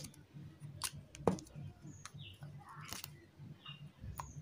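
Small scissors snipping and clicking as insulation is stripped from a thin light-string wire: a few sharp clicks, the loudest about a second in.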